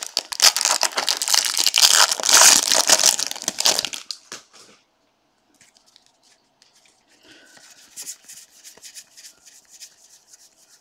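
Foil trading-card pack wrapper being torn open and crinkled, a loud dense crackle lasting about four seconds. After a short pause comes softer rustling and flicking of a stack of cards being slid through by hand.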